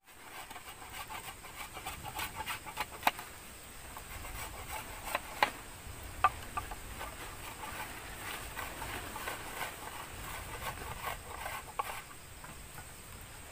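A knife scraping and shaving a green bamboo tube: a run of short scratchy strokes and light ticks, with a few sharper clicks in the middle.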